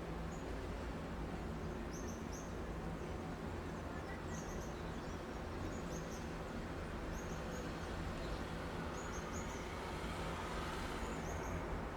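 City street ambience: a steady low hum of distant traffic, with short high chirps repeating every second or so in little groups of two or three. A vehicle passes about ten seconds in.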